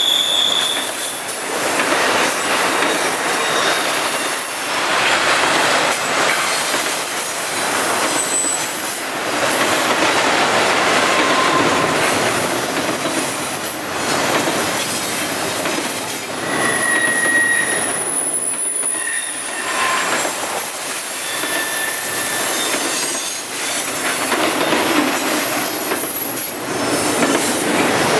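Double-stack intermodal freight train rolling past: the steady noise of its well cars' wheels running on the rails, with short high-pitched wheel squeals a few times.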